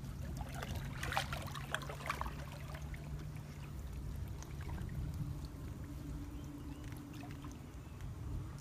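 Water splashing and trickling around a person wading in a shallow, muddy stream, with the splashes busiest about a second in. A steady low hum runs underneath and steps up in pitch just past halfway.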